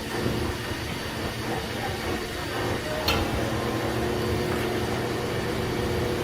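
Steady hum and rumble of metalworking machinery, with one sharp metallic knock about three seconds in.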